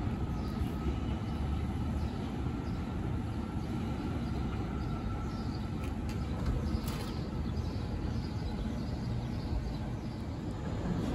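New York City subway train running along an elevated steel structure some way off: a steady low rumble with a faint whine.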